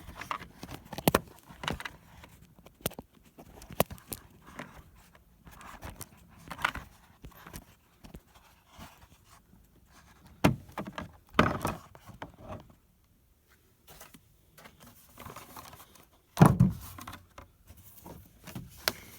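Scattered clicks, knocks and rustles as an oil filter and oil are handled and readied for pre-filling, with a heavier thump near the end.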